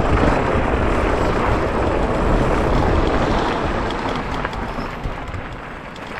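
Wind rushing over the microphone and tyre rumble from an electric scooter riding fast downhill on a dirt path. It is a loud, steady rush that eases off in the last couple of seconds.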